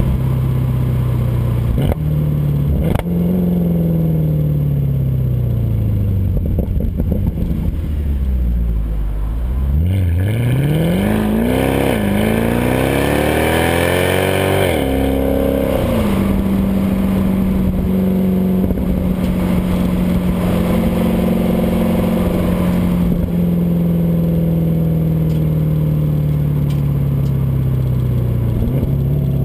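Stock exhaust of a 2012 Mercedes C63 AMG Coupe's 6.2-litre V8, picked up at the rear bumper. The engine note falls as the car slows, then about ten seconds in rises steeply under hard acceleration, with two quick upshifts. It then holds a steady drone while cruising and slowly sinks as the car coasts down near the end.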